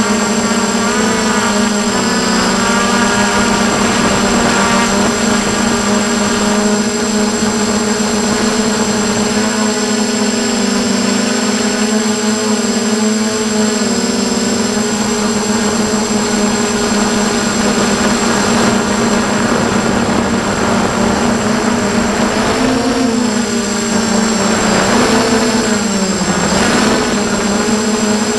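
Motors and propellers of an F450 quadcopter, recorded on board, buzzing steadily in flight. The pitch sways with the throttle and dips sharply then climbs back near the end as the drone turns.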